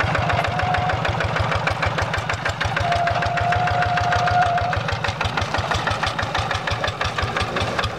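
Quick G1000 Boxer walking tractor's single-cylinder diesel engine running steadily with a rapid, even firing beat. A thin, steady high whistle sounds briefly about half a second in and again for a couple of seconds in the middle.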